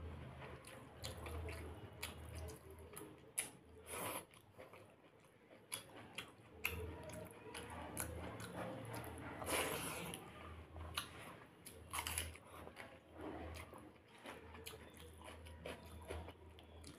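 Close-miked eating of dahi pakhala (rice soaked in curd water) by hand: wet chewing and crunching of mouthfuls, with a few louder crunches and the wet sounds of fingers working the rice in a steel bowl.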